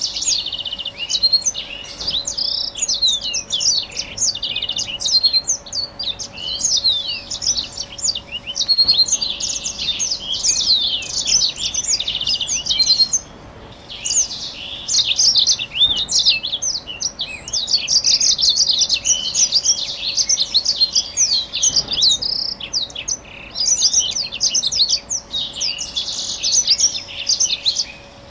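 Black-throated canary singing a long, fast, continuous warbling song of rapid trills and twitters, with a short break about 13 seconds in. A faint steady hum runs underneath.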